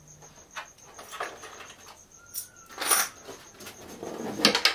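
Light knocks, clicks and scrapes of a laser-cut wooden model railroad baseboard being handled and lifted, with a louder scuffing noise about three seconds in.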